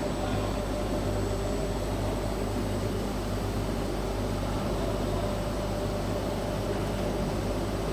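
Steady electrical hum and hiss of a TIG pipe welding machine running, with a low drone and a constant mid-pitched tone and no breaks.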